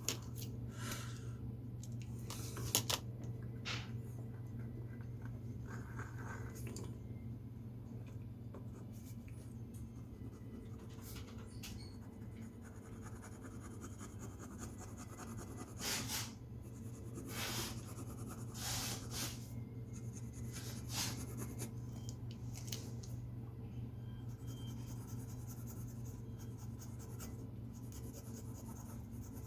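A drawing tool scratching on paper in short, irregular strokes, the clearest about 3 seconds in and again in a cluster past the middle, over a steady low hum.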